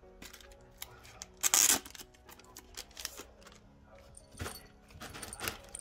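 Photocard packs being handled in their clear plastic sleeves: a short loud crinkle of plastic about one and a half seconds in, further rustles near the end, and light clicks of cards and fingers in between.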